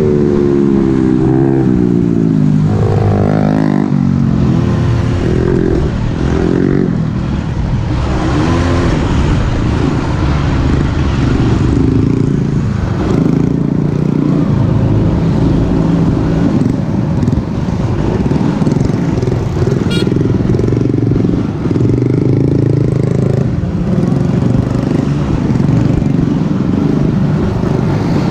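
ATV engine running hard on a dirt trail, heard up close, with its revs rising and falling continuously as the throttle opens and closes.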